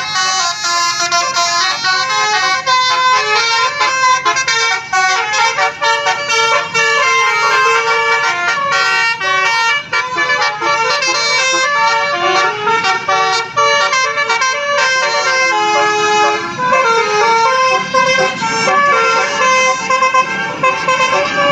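A bus's telolet basuri horn, a musical air horn, playing a quick melody of stepped notes without a break.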